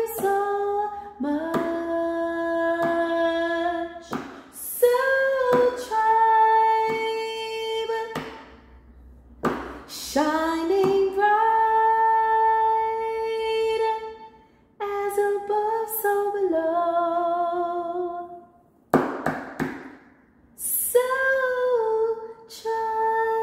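A woman singing unaccompanied in long, held notes, with short breaks between phrases and a wavering note about two-thirds of the way through.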